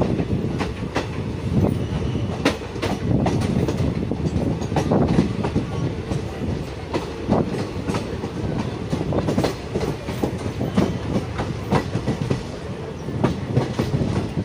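Passenger train coaches running along the track, heard from on board: a steady rumble with a constant patter of irregular clicks and knocks as the wheels cross rail joints.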